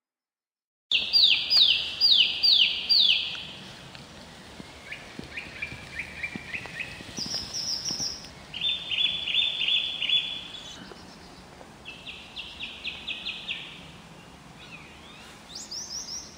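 Common blackbird singing after a second of silence: short phrases of quickly repeated falling notes, each phrase at a different pitch. The first phrase is the loudest.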